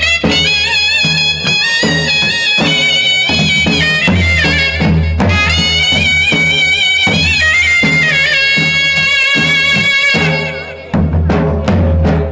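Charani raas folk dance music: a high, reedy wind-instrument melody moving in stepped notes over a low drone and a steady drum beat. About ten seconds in the melody stops and the drums carry on alone.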